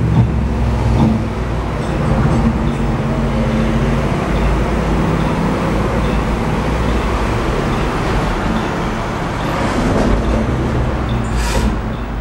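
Otis glass elevator cab travelling between floors: a steady low mechanical hum of the lift drive throughout, with a short hiss near the end as it arrives.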